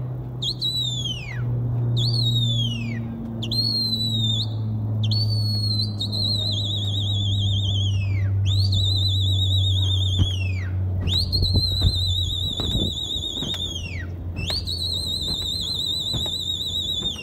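A person's loud, shrill whistling, about eight whistles in a row. Each rises sharply, holds with a warble and falls away, and the later ones run two to three seconds. It is the whistling a pigeon flyer uses to work his flock in flight. A steady low hum runs underneath.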